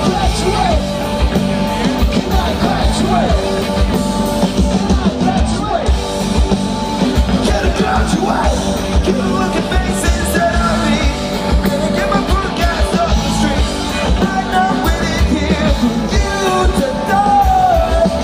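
Rock band playing live over a big outdoor PA: singing over drums and electric guitars, loud and steady.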